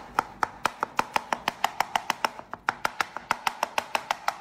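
Kitchen knife chopping soft roasted eggplant on a plastic cutting board: rapid, even strikes of the blade on the board, about six a second, each with a short ring, with a brief pause partway through.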